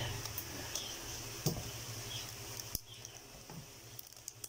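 Handling noise from a sneaker being wrapped with rubber bands to clamp its freshly glued sole: soft scratchy rubbing with a few sharp clicks, one about a second and a half in and one near three seconds.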